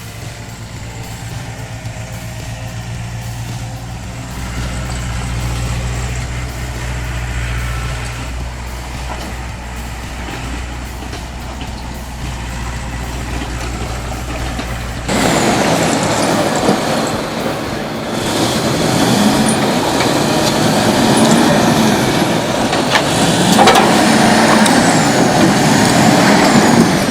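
Heavy-equipment diesel engine running with a steady low drone. About halfway through, it cuts abruptly to a louder, noisier machine sound with rising and falling high whines.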